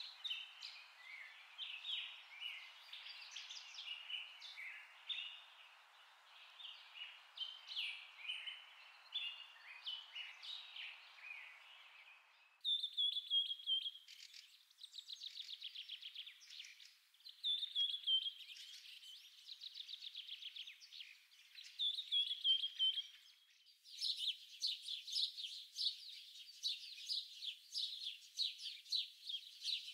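Birds chirping and singing, many quick calls. The birdsong changes abruptly about 13 seconds in to repeated descending trills, and again about 24 seconds in to a dense run of rapid chirps.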